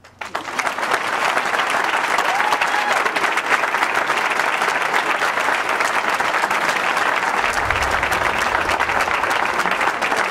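Audience applauding: dense, even clapping that swells in within the first second and holds steady.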